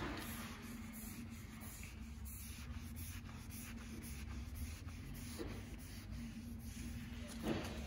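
Cloth-wrapped pad rubbing finish onto a planed tochi (Japanese horse chestnut) wood pillar: a soft, repeated wiping and brushing of cloth on wood, with a faint steady hum underneath and a brief louder rub or knock near the end.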